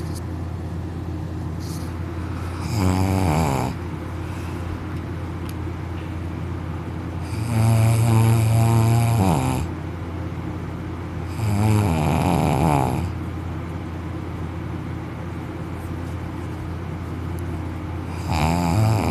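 A man snoring in deep sleep: four loud snores a few seconds apart, the longest about two seconds, each dropping in pitch as it ends, over a steady low hum.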